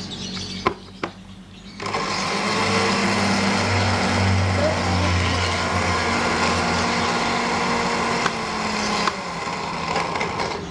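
A small motor runs steadily for about seven seconds with a low hum, switched on abruptly about two seconds in and cut off near the end.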